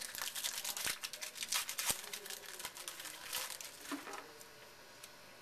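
Trading cards and their pack wrapper being handled: a quick run of rustling, crinkling and small card flicks that thins out after about four seconds.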